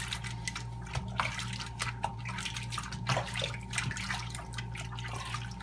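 Tap water running from a kitchen sink faucet onto a dog's coat, with irregular splashing and dripping as hands scrub the wet fur in the sink. A steady low hum runs underneath.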